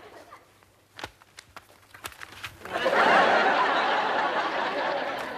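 Studio audience laughing, breaking out about halfway through and carrying on to the end, after a few faint rustles and light knocks.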